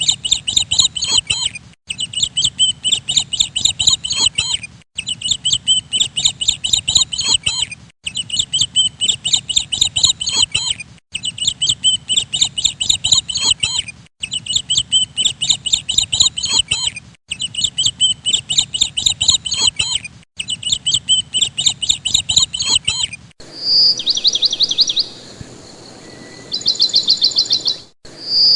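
Small bird chirping in fast runs of high notes, a short recording looped about every three seconds with abrupt cuts between repeats. Near the end a different bird's rapid trills take over.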